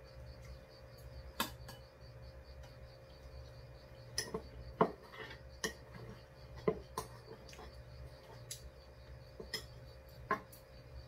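Metal spoon clinking and scraping against a ceramic rice bowl: about ten sharp clinks spread out, busiest in the middle.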